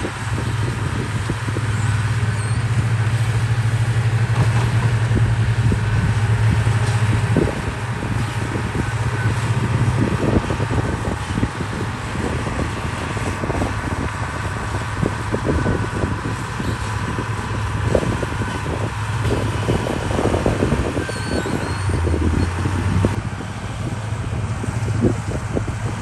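Diesel engine of a heavy earthmoving machine running steadily, with repeated short knocks and clanks. The engine is louder for the first seven seconds or so, then settles lower.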